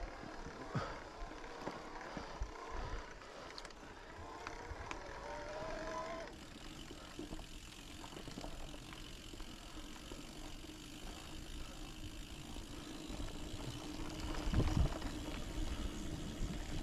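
Mountain bike riding over a rocky dirt trail: tyres rolling and crunching with scattered knocks and rattles, heavier thumps near the end. A steady tone through the first six seconds cuts off suddenly.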